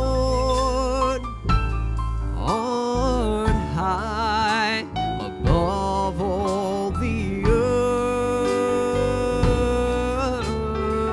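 Live gospel worship music: long held, wavering sung notes over keyboard and bass accompaniment.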